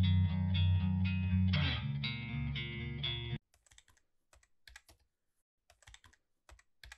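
Guitar-led intro music plays and cuts off suddenly about three and a half seconds in. Then come irregular keyboard typing clicks, a typing sound effect.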